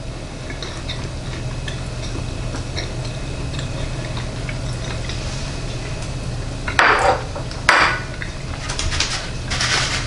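Faint mouth noises of someone chewing a freshly baked crescent roll over a steady low hum, then two short clatters of dishware on a kitchen counter about seven and eight seconds in, with more handling noise near the end.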